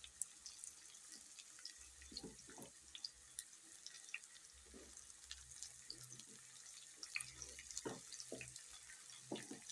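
Faint sizzling of chopped onions and red bell pepper frying in oil in a pan, with scattered small crackles and pops.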